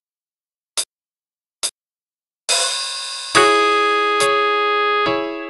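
MIDI music played back through the Microsoft GS Wavetable Synth: three short high ticks about a beat apart, a cymbal-like crash about two and a half seconds in, then a sustained keyboard chord entering a second later and re-struck twice.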